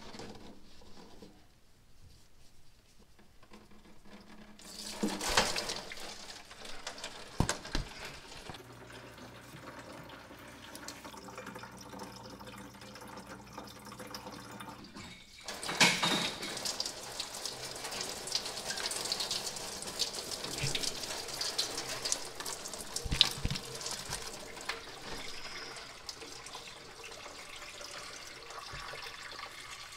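Engine coolant pouring from a car radiator's drain into a plastic funnel and jug, a steady splashing stream that gets louder about halfway through, with a few knocks.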